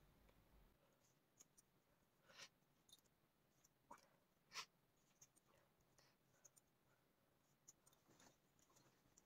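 Faint, scattered snips and clicks of small scissors cutting the plastic mesh net off a squishy stress ball, the loudest snip about halfway through.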